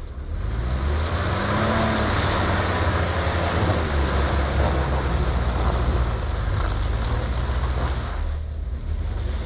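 Jeep engine revving under load as its tires spin and churn through deep, soupy mud, the revs rising over the first two seconds. The spinning is meant to keep the tread clear of mud.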